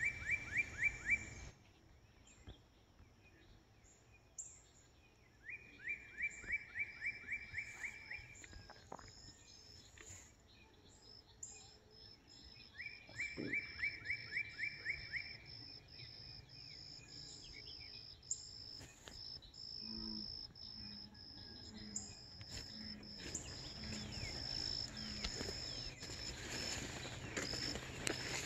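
A songbird repeating a fast run of down-slurred whistled notes, about four a second, in three phrases of two to three seconds each. Behind it a steady high insect trill comes in a few seconds in and carries on.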